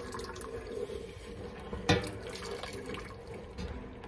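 Turkey broth pouring from a speckled enamel roasting pan into a stainless steel stockpot, with one sharp knock about two seconds in.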